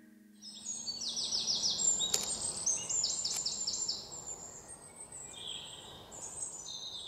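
Small birds chirping in quick runs of short, falling, high notes over a steady hiss of outdoor ambience, fading in about half a second in.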